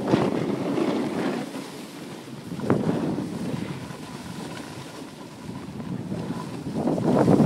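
Snowboard sliding and scraping over packed snow, with wind rushing on the microphone. There is a short sharp scrape about two and a half seconds in; the sound is quieter through the middle and rises again near the end.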